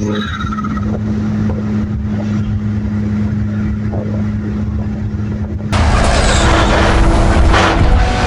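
Car engine running at a steady speed. About six seconds in, an abrupt cut switches to a louder burst of engine and road noise.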